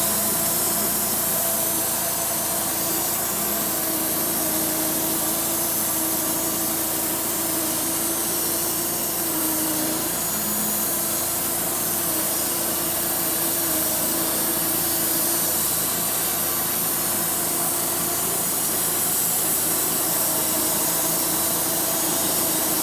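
Homemade sawmill's blade steadily sawing through a dry walnut slab, taking a shallow skim cut of about 3/16 inch to flatten out the slab's twist. Its hollow sound comes from the dry wood, which is harder to cut.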